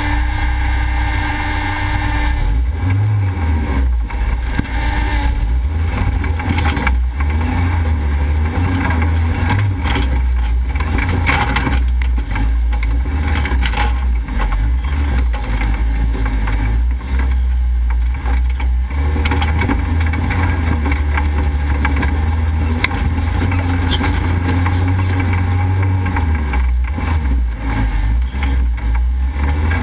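Off-road vehicle's engine running under changing throttle, a deep rumble that rises and falls, with knocks and rattles from the body jolting on rough ground.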